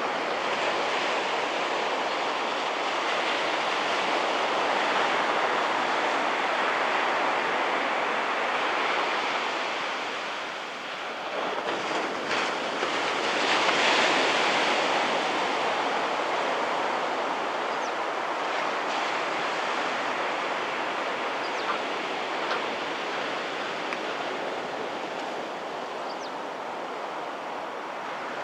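Small surf washing onto the beach as a steady rush, the small waves dumping close to shore. About eleven seconds in the rush eases briefly, then swells to its loudest with a bigger break a few seconds later.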